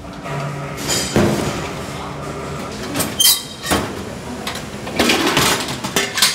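Stainless steel food pans, a cooking cabinet's pull-out rack and a large stainless pot clattering and scraping as they are handled. There are several sharp metal knocks, one ringing briefly about three seconds in.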